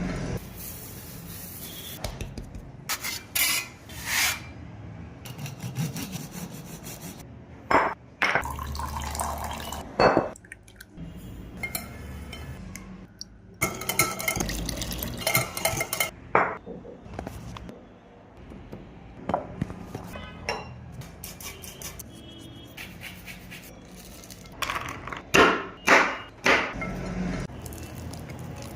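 Kitchen preparation sounds: a utensil clinking and scraping against a bowl, with liquid being poured and ingredients stirred. Sharp clinks come at irregular moments, the loudest in a cluster near the end.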